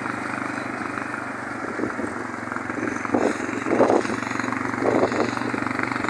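Motorcycle engine running steadily at low road speed, with a few short louder swells about three to five seconds in.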